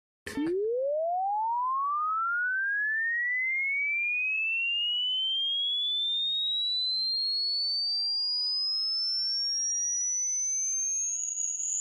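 Pure sine test tone sweeping steadily upward in pitch, from a low hum to a high whistle over about eleven seconds, starting with a click. It is a hearing-test frequency sweep: the point where it fades from hearing marks the listener's upper hearing limit. Near the end a second, lower tone joins in.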